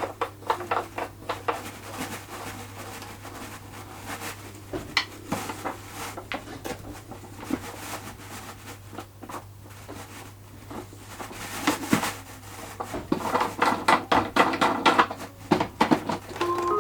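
Irregular clicks, knocks and rattles of small hard objects being handled, busier near the end, over a steady low hum.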